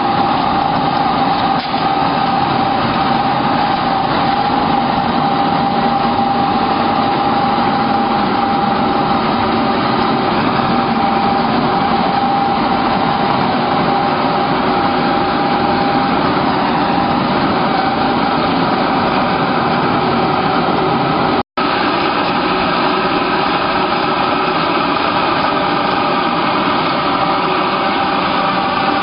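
HKJ350 pellet press production line running: its motors and machinery give a steady, loud mechanical drone with a high whine held throughout. The sound cuts out for an instant about three quarters of the way through.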